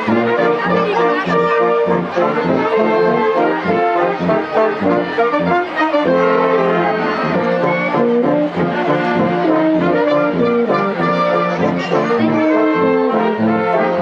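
Wind band playing a piece together: brass led by tubas, with flutes, clarinets and saxophones, and no break in the music.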